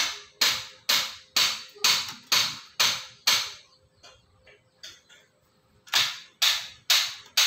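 A run of sharp, evenly spaced knocks, about two a second. They stop for a couple of seconds after the first half, then start again near the end.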